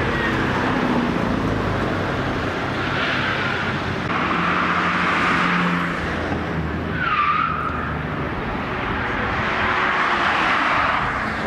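City street traffic: cars driving past one after another, each swelling and fading as it goes by. There is a brief squeal about seven seconds in.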